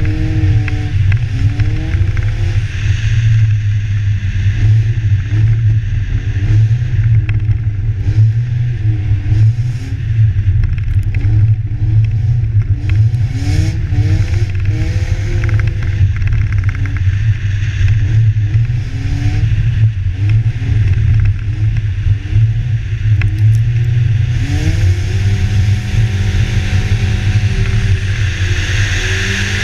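A BMW's engine revving up and down again and again as the car drifts on snow-covered ice, over a steady low rumble and the hiss of tyres throwing snow. About 24 seconds in, the revs hold steady for several seconds while the hiss grows louder.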